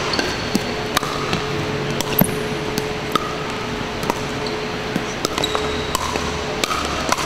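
Pickleball rally: paddles striking the hard plastic ball in a string of sharp pops at irregular spacing.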